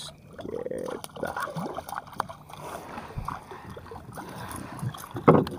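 Water splashing and sloshing beside a kayak as a hooked small barracuda is reeled up to the side, in irregular short splashes.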